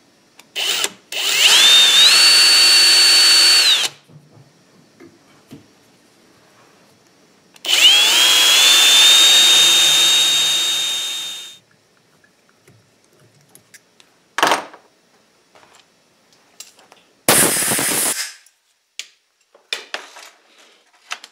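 A 24-volt brushless cordless drill boring through a washer into a belt grinder's drive pulley for a set screw. It runs twice for a few seconds each time, its whine climbing quickly to a steady pitch. Shorter bursts of noise come later.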